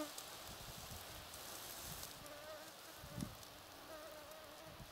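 Flying insects buzzing close by: a faint, wavering hum that drifts up and down in pitch. A soft low thump comes about three seconds in.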